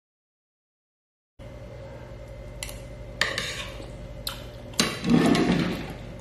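A metal fork clinking against a ceramic plate of siomay. It comes in a few sharp clinks after a second and a half of dead silence, then a louder, longer noisy stretch near the end, over a low steady hum.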